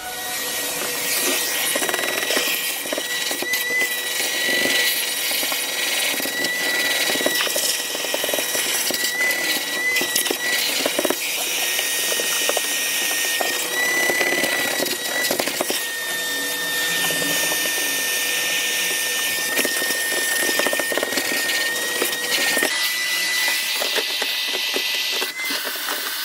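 Vacuum cleaner running steadily with a high whine that wavers slightly in pitch, its hose nozzle sucking over car carpet, with scattered short clicks.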